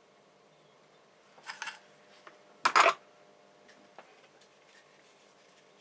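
Small hand tools handled at a workbench: a brief rustle, then one loud, sharp clack just under three seconds in, with a few light ticks around it.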